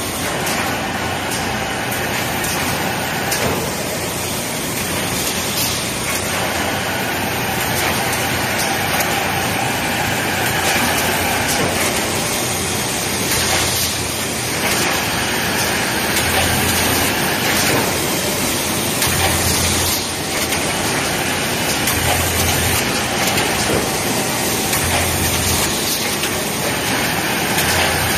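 Automatic woven-bag cutting, sewing and top-hemming line running: a steady, loud mechanical noise, with a low thump repeating about every three seconds in the second half.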